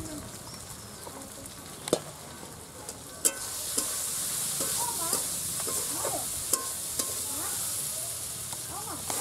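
Mixed vegetables frying in oil in a metal karahi, sizzling, while a metal spatula stirs them with a few sharp clinks and scrapes against the pan. The sizzle grows louder about three seconds in and then holds steady.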